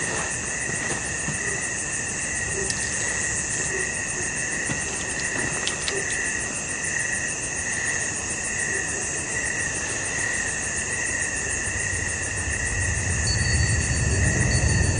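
Steady night insect chorus of crickets: a shrill, fast-pulsing trill holding at several pitches, with a few faint clicks in the first seconds. A low rumble builds near the end.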